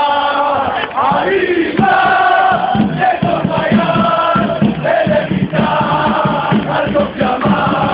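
A crowd of football supporters singing a chant together in the stands, many voices holding long sung notes over a steady crowd din. Loud and close, from within the singing crowd.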